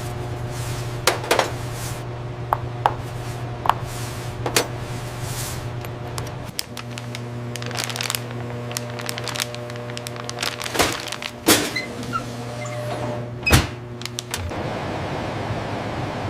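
A steady machine hum with scattered knocks and clunks. The hum breaks off briefly about six and a half seconds in and stops near the end, leaving a steady hiss.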